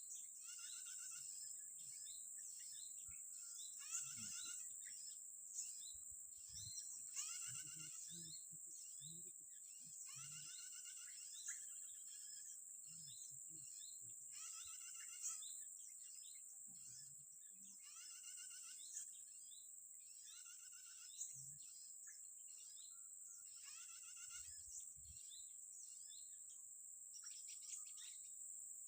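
Small birds chirping in quick repeated series, faint, over a steady high-pitched drone.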